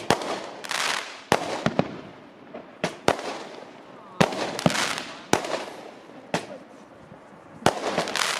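Fireworks display going off: about a dozen sharp bangs at irregular intervals, roughly one or two a second, several trailed by a hissing, crackling tail that dies away.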